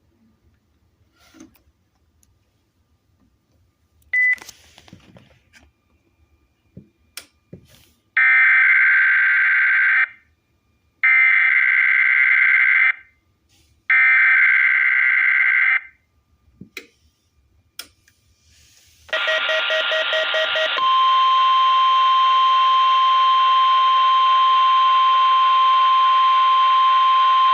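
NOAA Weather Radio SAME digital header relayed through a TFT EAS 911: three identical data bursts of about two seconds each. A few seconds later comes the long, steady 1050 Hz tone alert of the weekly test. A few faint clicks and a short beep come before the bursts.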